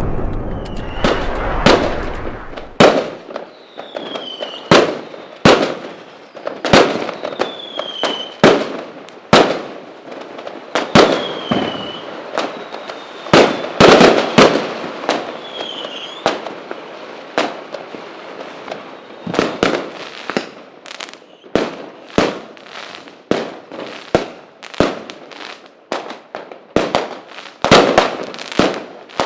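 Fireworks going off: a steady run of sharp bangs, roughly one or two a second, with crackling between them and several short falling whistles. A deep rumble sits under the first few seconds.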